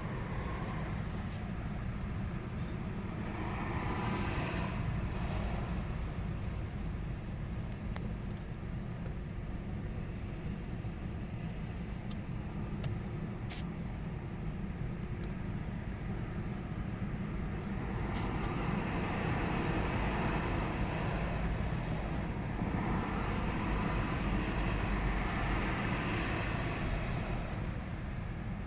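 Steady low rumble of vehicle noise that swells twice with a rushing hiss, about three seconds in and again from about two-thirds of the way through.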